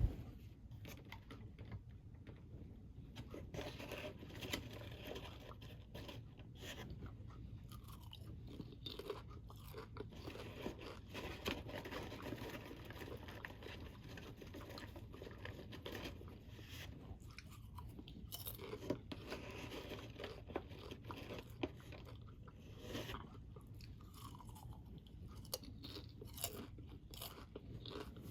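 A person chewing a crunchy snack, with irregular crunches throughout and a few gurgles from the stomach, heard as short falling tones.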